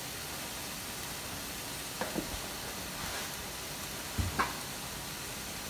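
Meat sizzling steadily in a frying pan while its released water cooks off, with a few short knocks as it is stirred about two and four seconds in.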